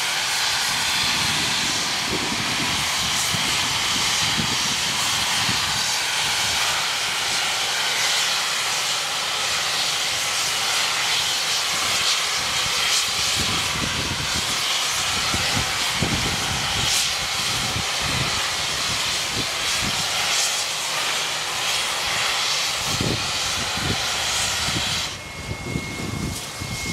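NSWGR 59-class 2-8-2 steam locomotive 5917 blowing off steam from its safety valves: a loud, steady hiss. It drops away near the end, leaving a thin, steady high tone.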